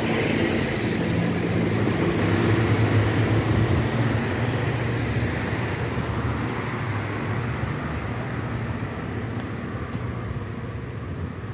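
City bus driving past close by: a low diesel engine drone with tyre hiss, loudest for the first few seconds, then fading as it moves away.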